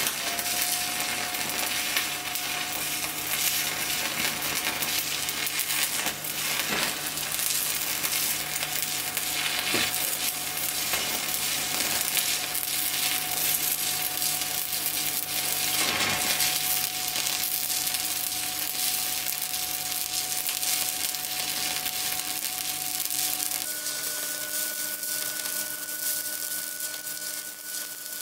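Stick (MMA) welding arc from an inverter welder burning a coated electrode, crackling and sizzling steadily as the bead is laid. A steady whine runs underneath and changes pitch about three quarters of the way through.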